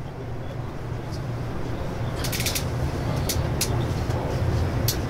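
Shinkansen platform ambience: a steady low hum and rumble that grows gradually louder, with a short run of sharp clicks a little after two seconds in and a few single clicks after it.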